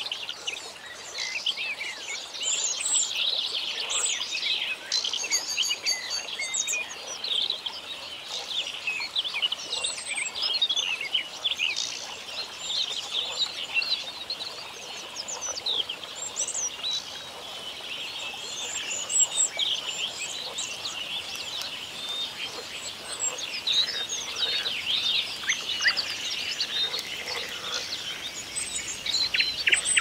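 Many songbirds singing at once: a dense, continuous chorus of short chirps, whistles and trills.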